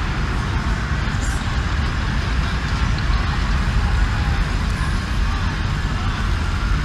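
Steady outdoor city street noise: a low traffic rumble with indistinct voices in the background.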